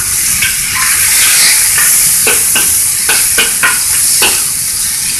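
Diced chicken breast sizzling in a hot hammered steel wok. Through the second half a metal wok spatula scrapes and clacks against the pan about eight times as the pieces are turned.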